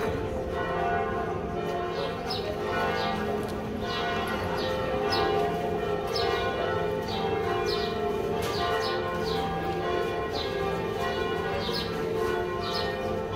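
Several church bells pealing, struck about once a second, their tones overlapping and ringing on between strikes.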